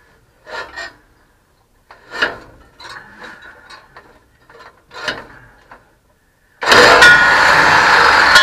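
Metal clinks and knocks as the cut steel exhaust pipe is worked loose. About seven seconds in, the Silverado's engine starts up loud through the shortened, open exhaust.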